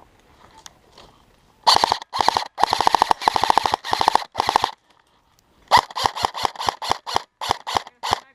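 Airsoft gun firing: several bursts of rapid automatic fire, then after a short pause a string of short bursts, about three a second.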